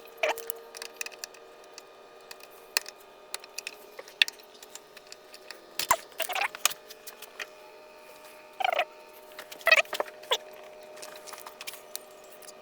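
Hand tools at work: scattered light clicks and a few short scraping rattles, the loudest around the middle and two-thirds of the way through.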